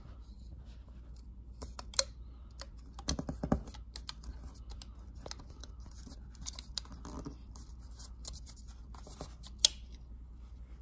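Scattered small clicks, taps and crinkles as fingers press black electrical tape and a red wire onto a thin oval of aluminium can on a workbench, with a sharper click about two seconds in and another near the end. A low steady hum runs underneath.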